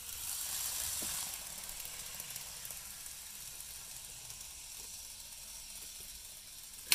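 A steady hiss, strongest in the first second and then slightly lower, with one sharp click near the end.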